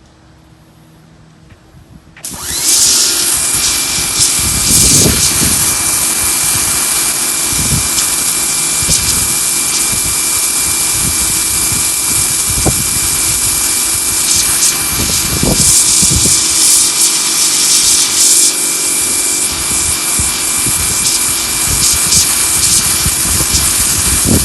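Electric pressure washer spraying through its 0-degree nozzle: the loud, steady hiss of the jet starts about two seconds in, carrying a steady high tone and uneven low surges.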